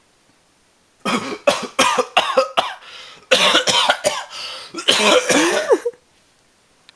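A man coughing and hacking in a run of loud, rough bursts lasting about five seconds, with a short pause partway, made with the mouth as an imitation of a party noise.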